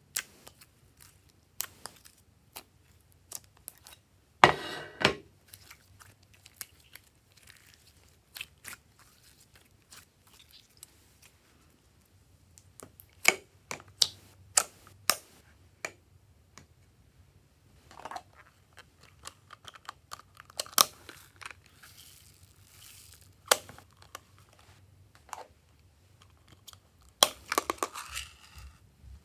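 Glossy slime being pressed, poked and peeled up from a plastic tray by fingers: scattered sticky clicks and pops, with a louder crackling tear about four seconds in and again near the end.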